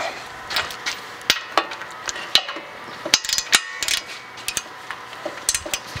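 Irregular metallic clicks and clinks of a socket wrench and ratchet being fitted to and worked on the tight brake caliper bracket bolts, with a cluster of clinks about halfway through.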